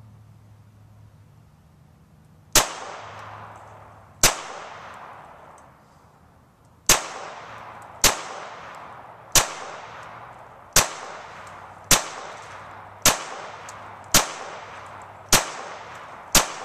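Walther PPQ M2 .22 LR pistol fired eleven times in slow, deliberate succession, the shots about one to two and a half seconds apart, each sharp report trailing off over about a second.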